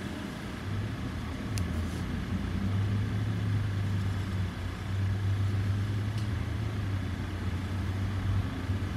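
Low, steady background rumble that grows louder about a second in, with a couple of faint ticks.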